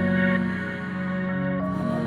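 Background music: a soft ambient track of sustained, held chords.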